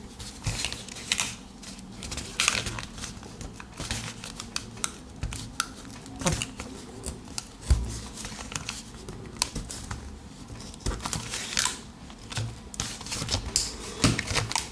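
Pocket knife blade cutting and prying through a stiff plastic blister pack, the plastic clicking, snapping and crinkling irregularly.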